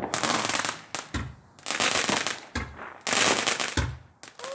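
Fireworks going off in rapid volleys of popping: three bursts of dense pops about a second each, with a few single cracks in the short gaps between.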